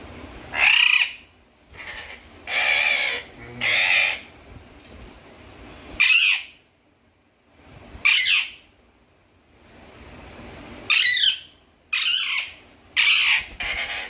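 Alexandrine parakeet giving about nine short, harsh screeches, spaced a second or more apart, with two quick ones near the end: angry squawks at a hand reaching toward it.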